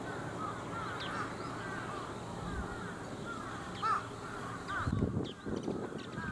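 Crows cawing, many short calls one after another, with a louder harsh call about four seconds in and rougher calls near the end, over a faint steady low hum.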